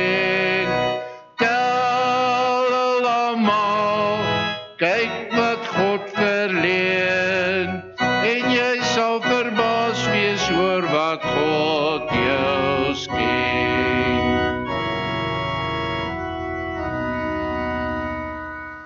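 Hymn chorus sung with instrumental accompaniment, ending on a long held chord that slowly fades and then cuts off suddenly.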